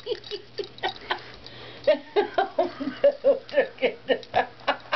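A dog chewing a plush squeaky toy, which gives quick short squeaks, about three or four a second and thickest in the second half, with small clicks of teeth on the toy.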